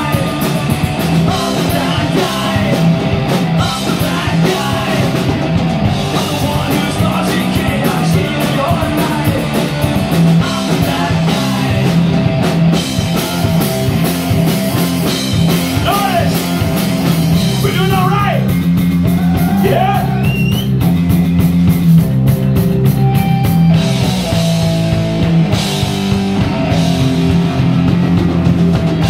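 Loud punk rock band playing live: distorted electric guitar, bass guitar and a drum kit driving a fast song, with a singer's lead vocal on top.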